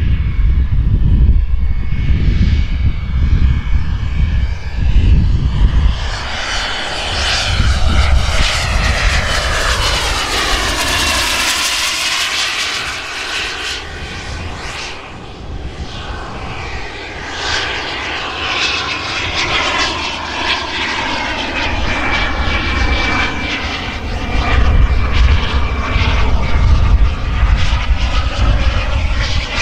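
Twin model jet turbines on a large Dassault Falcon 20 scale model whining in flight, the pitch falling steeply as the jet passes by about a third of the way in and again more gently later. A low rumble sits under it near the start and end.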